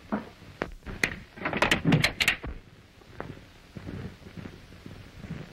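A rifle and its wooden crate being handled: a run of sharp wood-and-metal clicks and knocks, thickest around two seconds in, then fainter.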